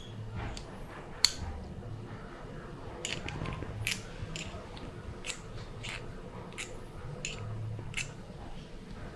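Irregular small sharp clicks of small parts being worked by hand: a new rubber seal being pushed into a metal espresso machine steam wand tip, a dozen or so ticks with the loudest about a second in.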